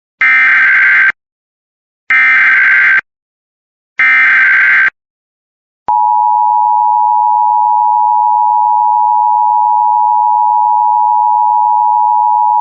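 Emergency Alert System SAME header: three bursts of warbling digital data tones, each about a second long and about two seconds apart. About six seconds in, the EAS attention signal follows: a steady, unbroken two-tone tone that carries on.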